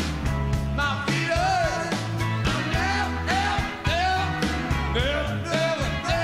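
A song playing, with a sung vocal line over a bass and regular drum hits.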